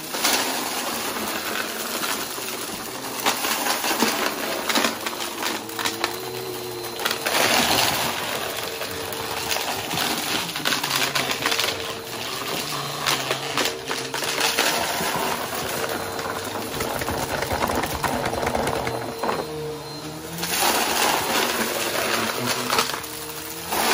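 Upright bagless vacuum cleaner running on carpet and sucking up a mix of glitter, sequins, beads and small hard debris, which crackle and rattle up through the floor head into the dust bin over the steady hum of the motor.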